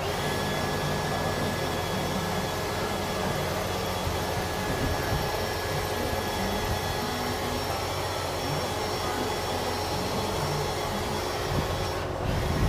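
Cordless drill running steadily with a whine, its long bit drilling out a broken exhaust manifold bolt in the cylinder head of a Cummins ISX15 engine. It falters briefly near the end.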